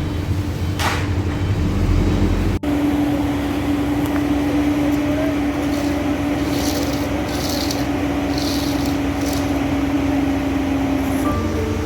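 Concrete boom pump truck's diesel engine running steadily on site. The sound cuts abruptly about two and a half seconds in, after which a steady machine hum continues.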